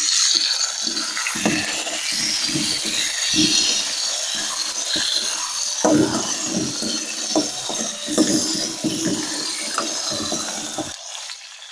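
Chopped tomatoes sizzling in hot oil in a metal kadai with shallots, garlic and chillies, while a steel spoon scrapes and knocks against the pan as they are stirred. The sizzle and clatter die down about a second before the end.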